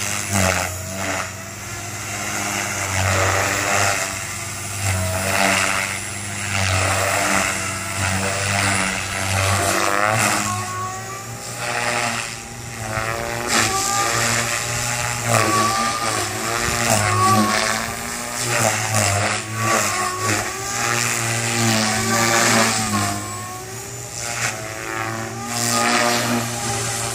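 Goblin 380 electric RC helicopter flying, its brushless motor and rotor giving a steady hum with a whine on top. The whine's pitch keeps gliding up and down and the loudness swells and dips as the rotor is loaded and unloaded.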